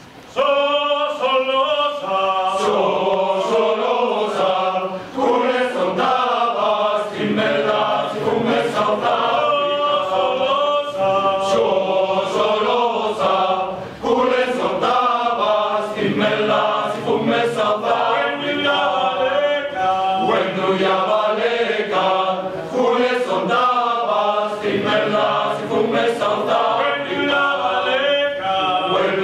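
Mixed choir of women's and men's voices singing together. They come in about half a second in and carry on with short breaks between phrases.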